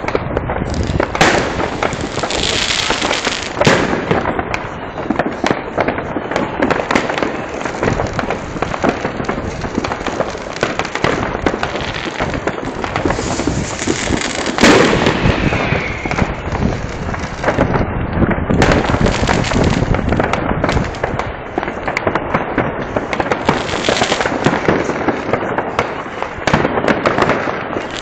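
New Year's Eve fireworks: rockets and firecrackers banging and crackling continuously, many overlapping at once, with the single loudest bang about halfway through.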